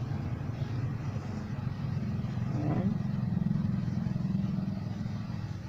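A motor vehicle's engine running with a steady, low hum.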